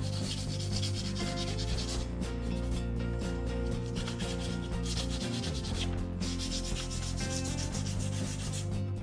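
Sandpaper rubbing by hand over the painted body of an RC truck, scuffing the paint down to a faded, worn finish. The rubbing goes in long spells, with short breaks about two, four and six seconds in.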